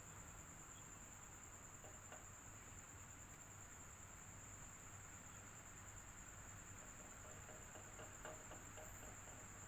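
Electric fan running steadily and faintly: a low hum with a steady thin high-pitched whine over it, and a few soft ticks about two seconds in and near the end.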